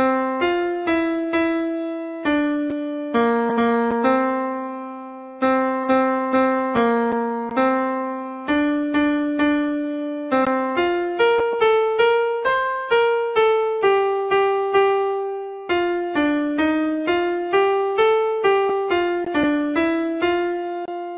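Software piano playback picking out the alto line of a choral hymn one note at a time, at a steady moderate tempo. Each note is struck and then fades, and the last note is held and dies away.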